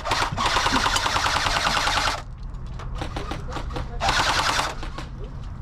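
Airsoft electric gun firing on full auto: a long burst of about two seconds, then a shorter burst about four seconds in, each a rapid, even rattle of shots.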